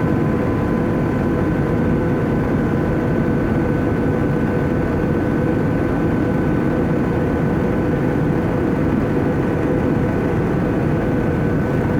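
Airbus A320 jet airliner engines and airflow: a steady, unchanging drone with a few faint steady hums over it.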